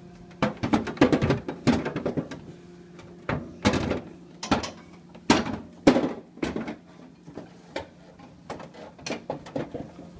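Plastic freezer ice bin being handled and pushed into place: an irregular series of knocks, bumps and clatters.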